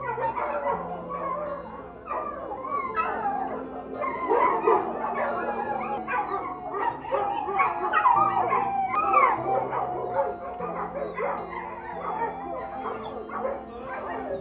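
A pack of dogs howling together, many long rising and falling howls overlapping with yips, busiest in the middle. Under them runs background music with a slow, stepping bass line.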